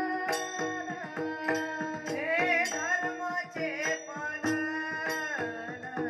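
A boy sings a Warkari devotional bhajan melody in a high voice, with pitch glides about two to three seconds in. Brass taal hand cymbals keep a steady beat of about two to three strikes a second over a sustained drone.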